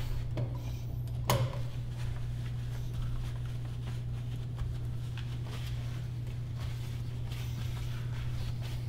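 Cloth wiping and rubbing a chrome kitchen faucet and granite countertop, faint and scattered, with one sharp click about a second in, over a steady low hum.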